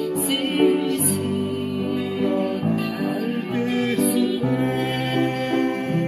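Upright piano played by ear, with sustained chords and melody notes, accompanying a woman singing with vibrato.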